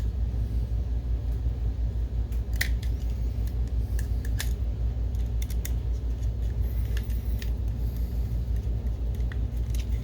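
Scattered light clicks and taps of plastic projector and fan parts being handled and fitted together, over a steady low hum.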